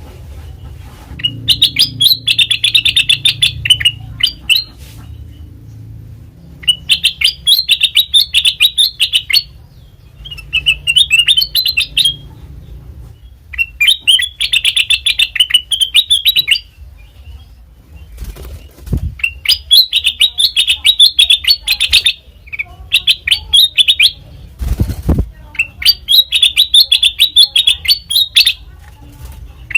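Kutilang emas bulbul singing repeated bursts of fast, high chattering notes, each phrase lasting two to four seconds with short pauses between. There are two low thumps in the second half, over a faint low hum.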